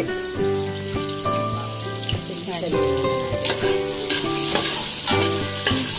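Chopped garlic and onion sizzling in hot oil in an aluminium pot, stirred with a metal spoon that clinks against the pot a few times; the sizzle grows louder from about halfway through.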